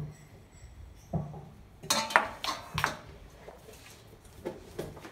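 Steel and glass mixing bowls knocking and clinking as they are handled and set down on a kitchen counter. A handful of dull knocks, with a cluster of bright ringing clinks about two seconds in.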